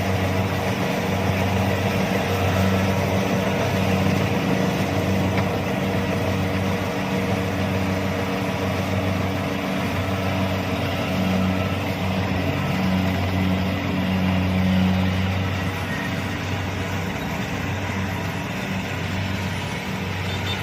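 Kubota DC-70 combine harvester's diesel engine running steadily with a low hum.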